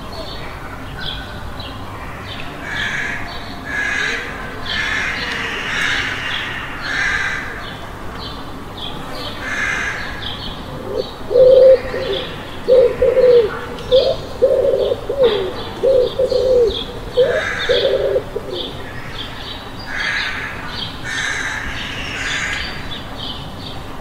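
Small birds chirping throughout, and a pigeon cooing in a run of low calls through the middle of the stretch, the loudest sound. A steady low hum of the surroundings lies underneath.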